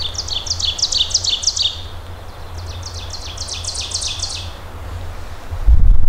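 A songbird singing two quick runs of repeated, down-slurred high notes over a steady low rumble. A sudden loud low rumble comes in near the end.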